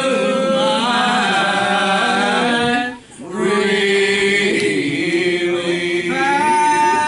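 Voices singing a slow gospel song in long held notes, more than one pitch at once, with a short break about three seconds in.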